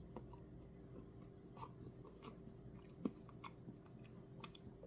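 Faint chewing of a mouthful of soft-serve Blizzard with cookie pieces: quiet, scattered mouth clicks, one slightly louder about three seconds in.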